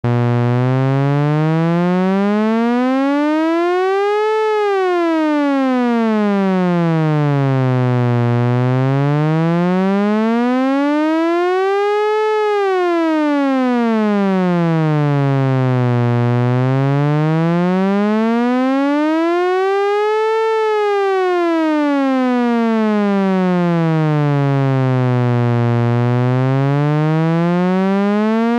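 Otamatone imitating a tornado siren: one electronic tone slowly rising and falling in pitch, about eight seconds per rise and fall, three times over and rising again near the end.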